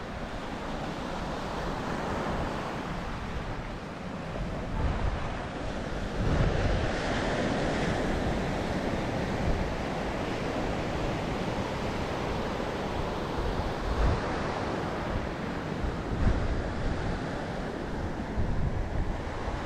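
Ocean surf washing onto a sandy, rocky beach: a steady rush that swells about six seconds in. Wind buffets the microphone in short low gusts.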